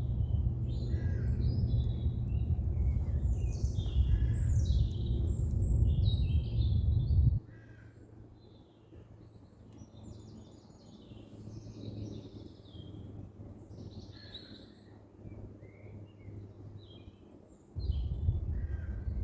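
Birds calling and chirping in quick, scattered notes. Beneath them runs a low rumble that cuts out suddenly about seven seconds in and comes back near the end.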